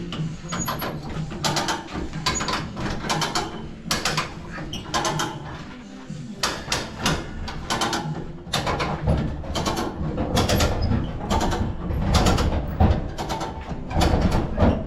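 Hand-operated hoist ratcheting as it is worked, in irregular sharp clicks about one to two a second, with a low rumble growing stronger in the second half.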